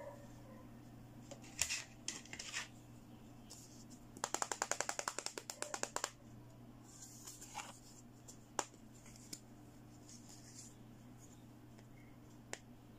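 Hands handling a pink plastic toy smartphone: scattered clicks and taps, with a quick run of about twenty even clicks near the middle, over a faint steady hum.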